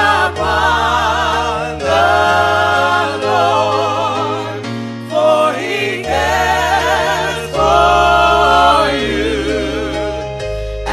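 Gospel music with a choir singing long held notes with vibrato over steady bass notes.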